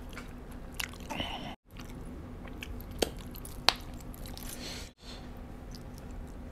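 Close-miked chewing and wet mouth sounds of a man eating ghost pepper chicken wings, with a few sharp smacking clicks, over a steady low hum. The sound cuts out completely twice for a moment.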